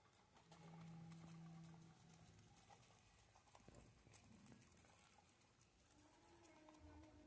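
Very faint guinea pigs eating: small scattered clicks and rustles of nibbling, with a faint steady low hum lasting over a second about half a second in.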